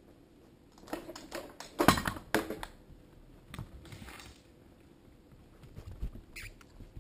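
A dog nosing and knocking about a plastic hamster cage: a run of clattering knocks, sharpest about two seconds in, then fainter rustling. Near the end come a few more thumps and a short high squeak.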